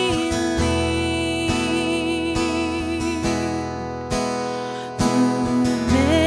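Background music: acoustic guitar chords strummed about once a second under a long held melody note.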